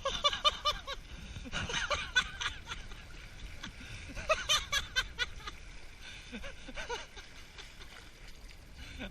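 A man laughing in bouts of quick repeated pulses. There is one at the start, another about two seconds in, and the strongest around four to five seconds in, with a few fainter ones after. A low steady rumble runs underneath.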